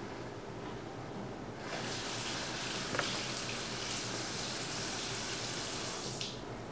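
Water running steadily from a tap, turned on about two seconds in and shut off abruptly shortly before the end.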